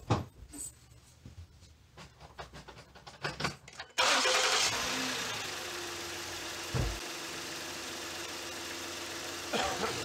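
A 300,000-mile 2009 Ford Taurus's 3.5-litre V6 is started after a few light clicks and knocks. About four seconds in it catches at once and flares loud, then settles within a couple of seconds into a steady idle, with a single thump partway through.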